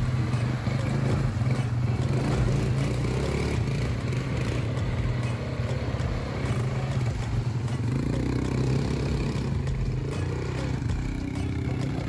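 ATV (quad bike) engine running steadily, with clattering and rattling over it.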